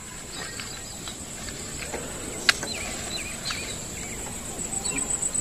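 Outdoor ambience: a steady high insect drone with a few short bird chirps, and one sharp click about two and a half seconds in.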